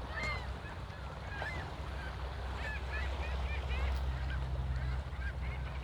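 Waterside birds calling over and over in short, quick chirps, over a steady low rumble.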